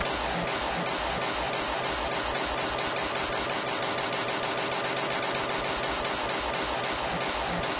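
Fast electronic dance music in a noise-heavy build-up: rhythmic bursts of white-noise hiss that come faster toward the middle, while the deep bass thins out and comes back near the end.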